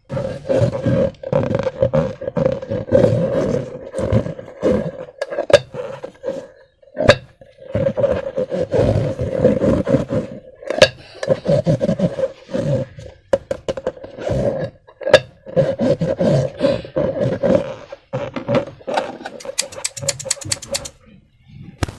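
Slime being squeezed and worked in a transparent balloon: continuous rubbery squelching and scraping, broken by sharp clicks, ending in a quick run of clicks before it stops.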